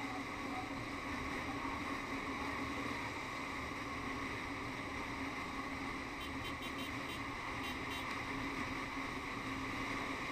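Kawasaki KLX250SF single-cylinder motorcycle cruising at a steady speed, its engine hum mixed with steady wind rush on the microphone. A few light ticks sound about six seconds in.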